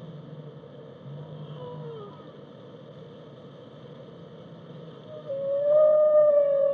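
Whale song: faint, short gliding calls over a steady background hiss, then about five seconds in a loud, long call that rises slightly in pitch and holds.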